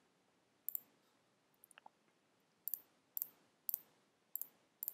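Computer mouse button clicks, each a quick press-and-release pair, six times at irregular spacing, plus a few fainter ticks.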